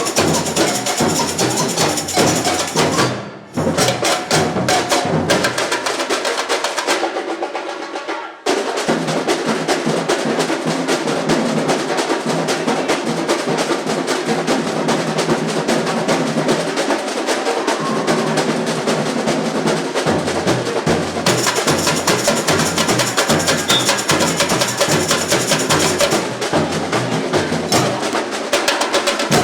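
Samba bateria, a large drum and percussion ensemble, playing a fast samba rhythm with dense, even strokes. About three seconds in it cuts out briefly; from about six seconds the bass drums drop out and the whole section comes back in together at about eight and a half seconds.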